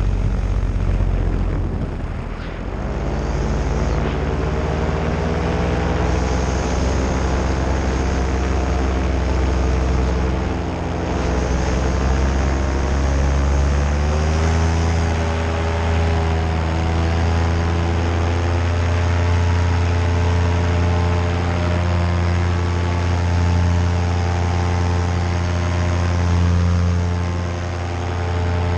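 Paramotor's Nitro 200 two-stroke engine and propeller running in flight. The throttle eases off briefly a couple of seconds in, then the engine runs steadily, and its pitch steps up a little about halfway through.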